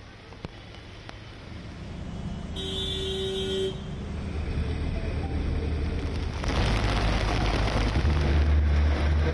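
Vehicle noise with a single horn blast lasting about a second, about three seconds in. From about six and a half seconds a loud low rumble with a rushing hiss builds up, as of a heavy vehicle passing close.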